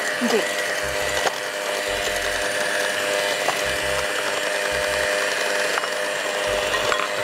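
Electric hand mixer running steadily, its beaters churning creamed butter and sugar cake batter in a glass bowl, with a steady high motor whine.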